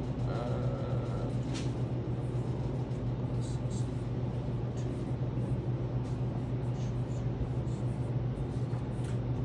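Dry-erase marker writing on a whiteboard: a string of short, scratchy strokes over a steady low room hum.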